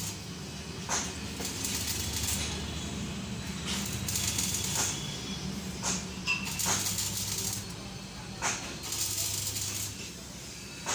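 Electric arc welding: a crackling hiss that comes and goes in stretches of one to two seconds, with short breaks between, over a steady low hum from the welding machine.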